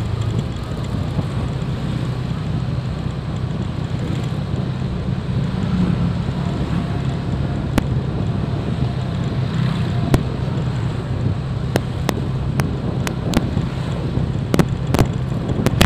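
Steady low drone of a motorbike engine and road noise while riding along a street, with wind on the microphone. A scatter of sharp clicks comes over the last few seconds.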